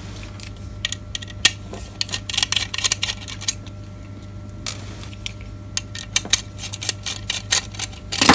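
Irregular plastic clicks and taps as a dome security camera's plastic shell and circuit boards are handled and worked apart, over a steady low hum.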